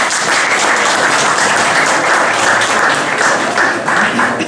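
Audience applauding: dense, steady clapping that breaks off near the end.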